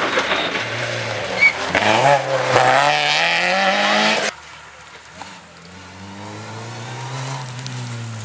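Rally car engine at full throttle passing close by, revs climbing, dipping once at a gear change and climbing again. It cuts off abruptly about four seconds in, followed by another rally car's engine heard farther off, its revs slowly rising as it comes on.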